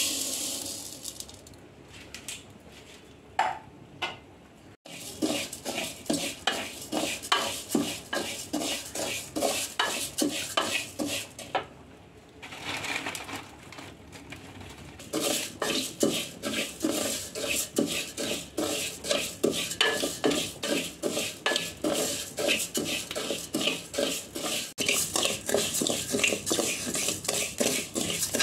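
Raw rice poured with a short rush into an aluminium pan, then dry-roasted: a flat wooden spatula scrapes and turns the dry grains against the metal in quick, repeated strokes, with a break about halfway.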